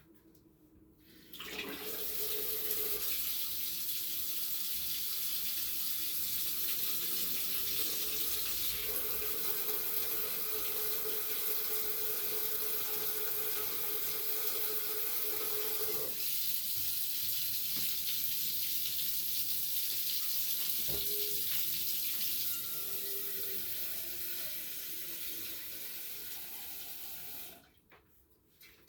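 Water tap running into a sink as a steady rush. It is turned on about a second and a half in and shut off shortly before the end.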